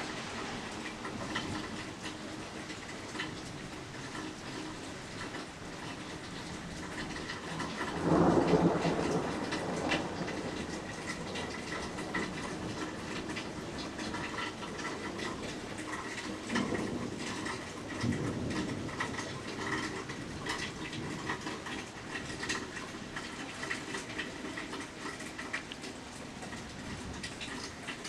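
Steady rain falling during a thunderstorm. Thunder rumbles loudly for about two seconds about eight seconds in, and two fainter rumbles follow about halfway through.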